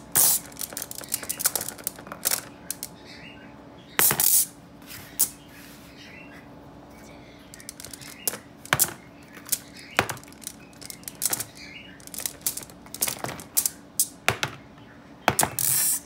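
Small magnetic balls clicking as they snap together and are set down in a cardboard box lid: irregular sharp clicks, with a couple of brief rattling bursts.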